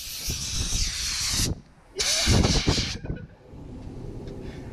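Compressed-air paint spray gun hissing in two bursts, the first about a second and a half long, the second about a second, as the trigger is pulled and released.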